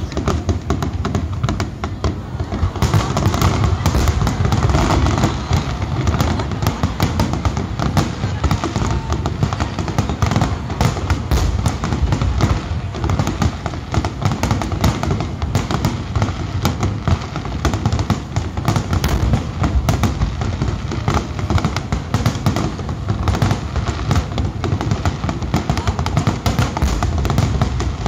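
Aerial fireworks bursting in a dense, continuous barrage: many rapid cracks and bangs over a steady low rumble, with no gap.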